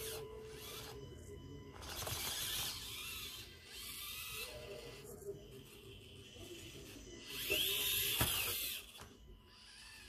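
Axial SCX24 mini RC rock crawler's small electric motor and gear train whining as it crawls over stone slabs, in bursts of throttle. The loudest burst comes about seven and a half seconds in, with a whine that rises then falls.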